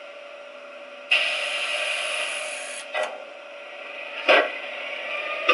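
Sound decoder of a Lenz O gauge Br141 electric locomotive model playing the loco's characteristic sound through its small speaker: a low hum, then a hiss starting about a second in and lasting nearly two seconds, then sharp cracks about three and four and a half seconds in. These are the 'firecracker' bangs of the real Br141, the tap-changer cracks that earned the class its nickname 'Knallfrosch'.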